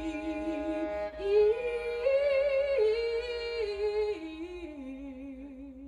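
Voices singing a cappella in long held notes with vibrato, one note held steady while a second line steps up and then falls, fading near the end.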